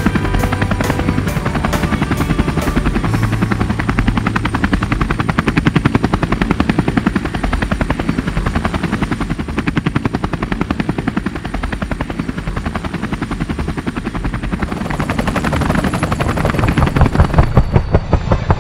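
Helicopter running: the rotor blades beat in a rapid, even chop over a steady engine hum. The beat grows louder near the end.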